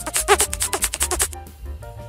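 Cartoon mouse-squeak sound effect, a rapid run of short, high chirps that stops about a second and a half in, over light background music.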